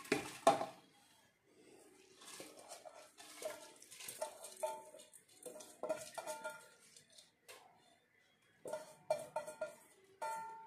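Soaked rice poured from a metal bowl into an aluminium pressure cooker, a short rush about half a second in. After it come scattered light metallic clinks and scrapes as the bowl knocks against the cooker.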